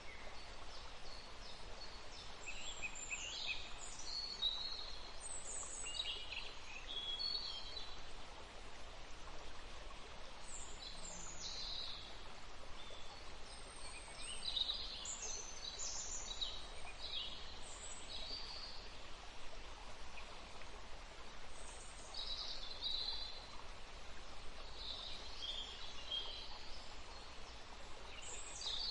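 Several birds calling and singing in short clusters of high chirps and whistles, over a steady background hiss.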